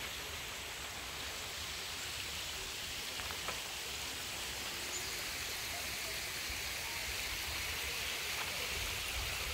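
Steady rush of a shallow creek running over rock ledges at low water, with a faint low rumble underneath.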